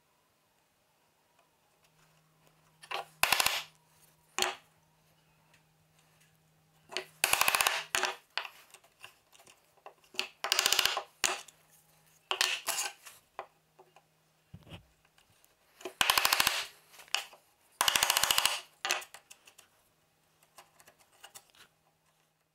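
Hand chisel pushed through hardwood, paring the walls of a shallow recess: about six short crackling scrapes at irregular intervals, each a quick rattle of ticks as the edge shears the fibres, with a few fainter clicks between.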